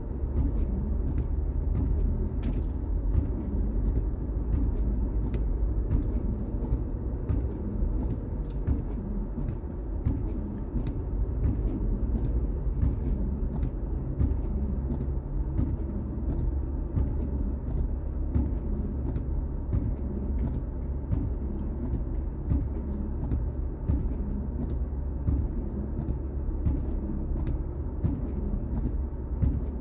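Steady low rumble of a car's engine and tyres, heard from inside the cabin as it creeps forward in slow traffic on a snowy road.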